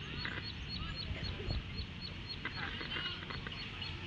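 Open-air ambience: a high chirp repeating evenly about three times a second over a steady low rumble, with a few short distant calls or shouts near the start and again a bit past halfway.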